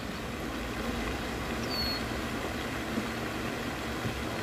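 Steady outdoor background rumble, with one short high chirp that rises and then holds, about a second and a half in.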